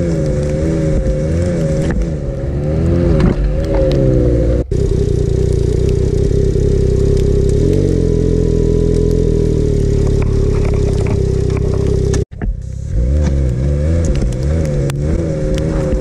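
Ski-Doo Expedition SE 900 Turbo snowmobile's turbocharged three-cylinder four-stroke engine running, its pitch wavering up and down with the throttle. For several seconds in the middle it holds a steady idle. The sound drops out briefly twice, about 4.5 and 12 seconds in.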